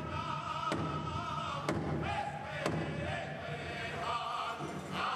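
Powwow singers chanting in chorus with high, held notes over a big drum, struck hard about once a second in the first half.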